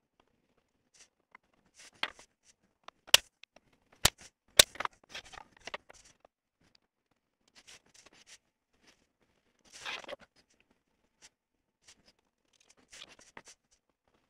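Steel rule and square being set down and shifted on a sheet of aluminium plate, with a few sharp metal clicks about three and four seconds in, and short scratching strokes of a pointed marking tool scribing lines on the aluminium.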